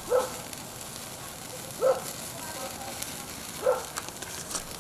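Short ribs sizzling over a flaming charcoal fire on a Weber kettle grill, with light crackling. Three short calls, each rising then falling, about two seconds apart, are the loudest sounds.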